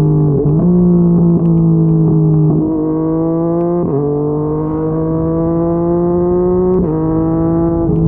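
Yamaha MT-09's crossplane inline-three engine through a Yoshimura R55 slip-on exhaust, running under way with a steady, even note that climbs slowly in pitch and jumps abruptly about four seconds in and again near seven seconds.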